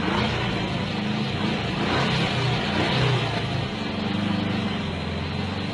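A car running, with a steady engine hum and road noise.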